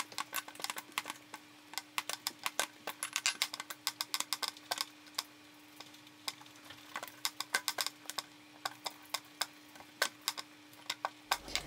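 Wooden rolling pin with handles rolling out dough on a baking mat: irregular sharp clicks and knocks, several a second, over a faint steady hum.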